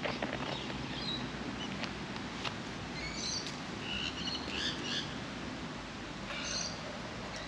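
Short, high bird chirps in a few quick clusters, about three to five seconds in and again near six and a half seconds, with a few faint clicks over steady background noise.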